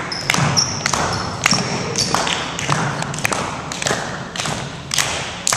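A group of people clapping along to a beat, about two claps a second, echoing in a gymnasium, with voices underneath.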